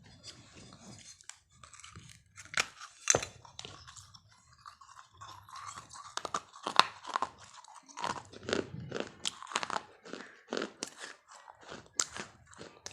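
Chewing: irregular crunches of crisp food being bitten and ground, one after another, with a few louder crunches scattered through.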